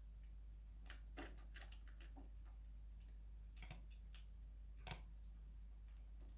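A cat eating, with scattered faint crunching clicks: a quick cluster about a second in, then single ones later, over a low steady hum.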